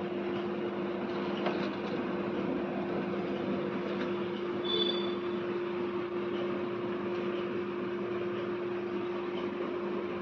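A steady machine hum: two constant low tones under an even rushing noise, with a brief faint high tone about five seconds in.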